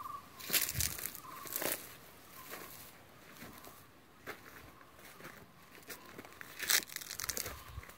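Footsteps crunching on dry dirt and gravel at an uneven pace, with a few louder scuffs, loudest near the start and again near the end. A brief high trill sounds right at the start and again about a second in.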